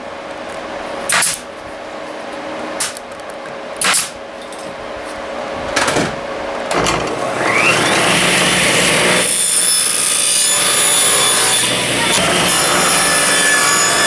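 A pneumatic brad nailer fires several sharp shots, one every second or two. About seven seconds in, a table saw starts up with a rising whine and then runs steadily, cutting through small wooden blocks on a crosscut sled.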